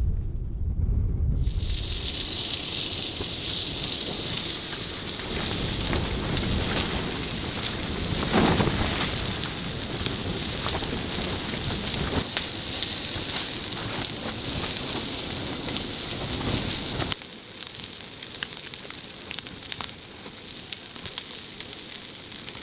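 Low wind rumble on the microphone stops abruptly and gives way to steady crackling and sizzling, thick with small pops. About seventeen seconds in it cuts to a quieter, duller hiss.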